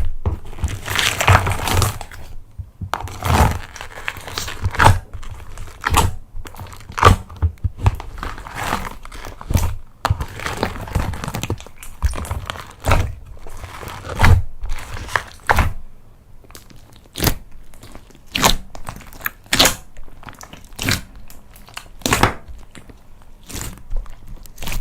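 Hands kneading and stretching slime: irregular squishy crackles, pops and sharp clicks.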